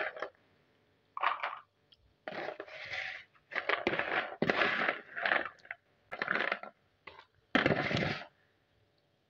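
Crunchy fried chin chin pieces rattling against a slotted spoon and plastic as they are scooped from a plastic plate and tipped into plastic tubs. The sound comes in a string of short, irregular bursts.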